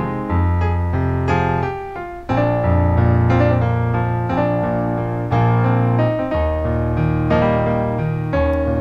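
Electronic keyboard in a piano voice playing a slow soul-ballad instrumental break: held chords with melody notes on top, briefly dropping away about two seconds in before the next chord.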